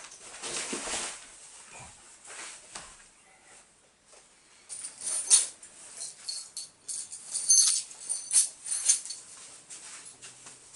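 Cloth rustling as trousers are pulled on. About five seconds in comes a run of bright metallic jingling and clicking: a bunch of keys being handled.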